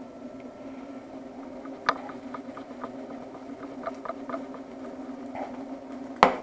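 An omelette cooking in a frying pan: light crackles and spatula taps over a steady hum, with one sharp click about two seconds in and a louder knock of the pan near the end.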